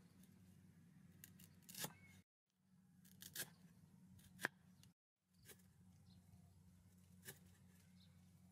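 Steel cleaver slicing shallots on a wooden chopping block: a few separate sharp knocks of the blade striking the wood at an uneven pace, over a low steady hum.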